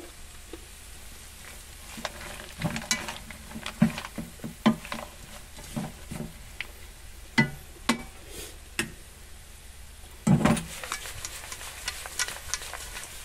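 A wooden spatula stirs dried anchovies and almonds in a nonstick frying pan, with irregular scraping, clicking and knocking as the nuts and spatula hit the pan. The stirring starts about two seconds in, over a steady sizzle of the oil.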